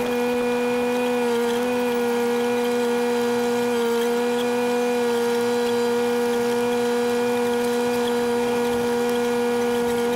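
Takeuchi TB016 mini excavator tracking along at steady revs: its engine and hydraulics run with an even, steady whine.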